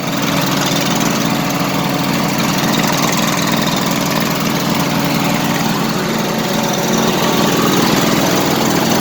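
Craftsman riding lawn mower engine running steadily after its engine was pressure washed, with no backfiring.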